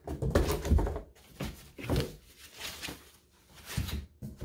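Painted wooden step-stool parts being handled and set down, knocking against each other and the cardboard box, with rustling of the box and packing between the knocks. The heaviest thuds come in the first second, with more knocks about two seconds in and near the end.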